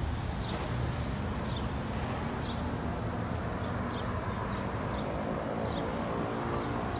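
Steady low engine rumble, with a bird's short, high, falling chirp repeating about once a second.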